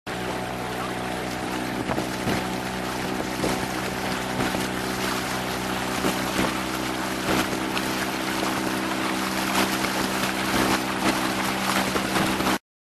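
Small motorboat's engine running at a steady speed while under way, with the rush of water and wind noise over it. It cuts off suddenly near the end.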